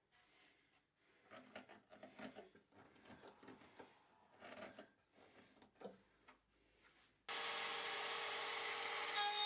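Faint rubbing and clicking of hands tightening screw clamps on a board, then about seven seconds in a router comes in suddenly, running steadily with a hiss and a steady tone.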